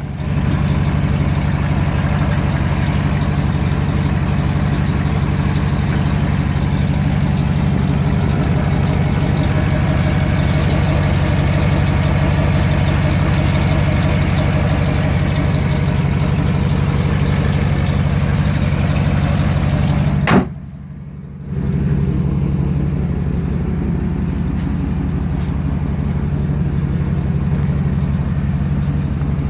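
2008 GMC Sierra Denali's 6.2 L L92 V8 idling steadily through an exhaust with a leak just ahead of the secondary catalytic converter, resonator deleted and dumped at the axle. About two-thirds through there is a sharp click and a second of quieter sound before the idle resumes.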